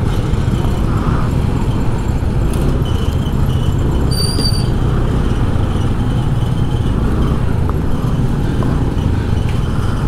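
Steady low rumble of motorcycle engines and street traffic at low speed, heard from a moving motorcycle. A brief high-pitched tone sounds about four seconds in.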